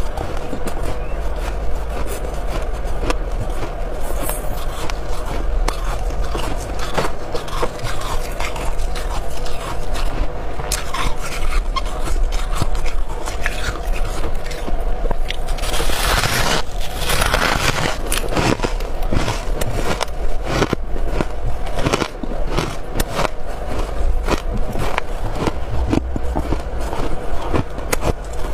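Freezer frost and hard ice being bitten and chewed: a dense, continuous run of crackling crunches, with a louder rasping crunch a little past halfway.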